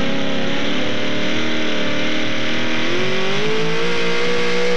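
Supercharged engine of a modified four-wheel-drive pulling truck running at high revs while the truck pulls the sled. Its pitch climbs about three seconds in, then holds steady.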